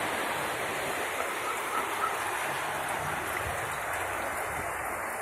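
Steady rushing noise of rainwater running over a flooded city street.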